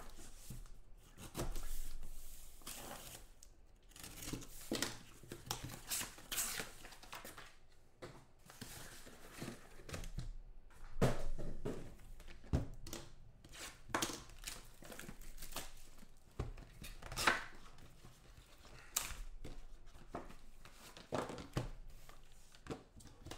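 A cardboard case being torn open and the small cardboard boxes inside pulled out and stacked by hand: irregular tearing and rustling of cardboard and wrapping, with sharp knocks now and then as boxes are set down.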